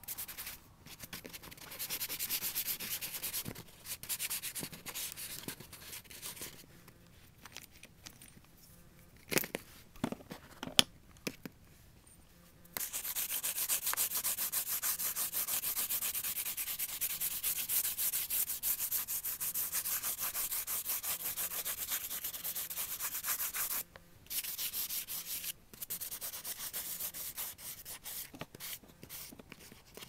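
Pastel scratching rapidly back and forth on drawing paper as a background is shaded in. It comes in short stretches at first, with a few sharp taps around ten seconds in, then long continuous shading broken by a short pause.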